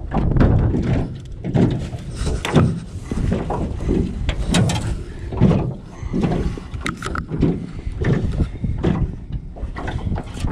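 Wind rumbling on the microphone, with irregular knocks and rattles in an aluminum jon boat as a redfish is reeled in and lifted aboard.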